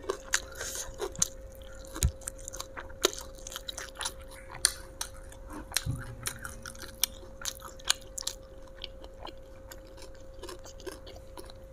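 Close-up chewing of raw lalapan, with irregular crisp crunches and mouth clicks. A faint steady hum sits underneath.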